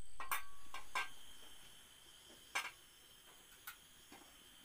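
A few light clicks and knocks of cookware being handled, over a faint steady high-pitched background tone.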